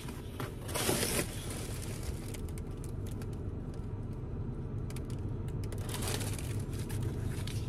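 Cardboard box and packaging being opened and handled: a burst of crinkling and tearing about a second in, then scattered small clicks and rustles. A steady low hum runs underneath.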